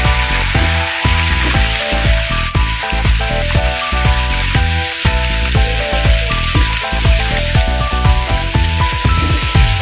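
Chopped chilli, onion and egg sizzling in hot oil in a frying pan as a slotted spatula stirs them, with a steady hiss. Background music with short melodic notes plays over it.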